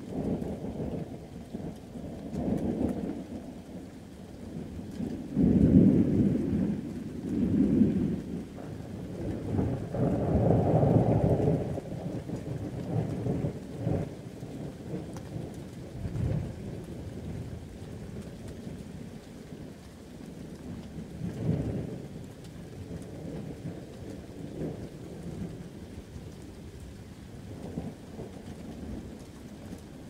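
Thunderstorm: rolling thunder rumbles again and again over steady rain. The loudest peals come in the first half, with another strong rumble about two-thirds of the way through.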